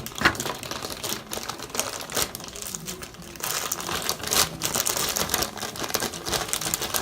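Plastic bag crinkling and rustling in irregular crackles as it is handled and opened to take out a set of hair clippers.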